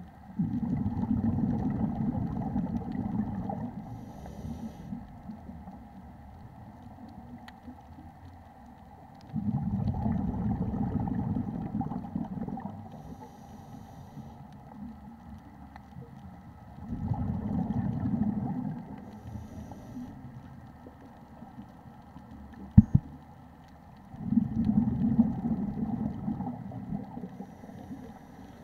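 Scuba diver breathing through a regulator, heard underwater: exhaled bubbles rumble in four bursts of about three seconds each, roughly every seven or eight seconds, each followed by a faint high hiss. A single sharp click comes about two-thirds of the way through.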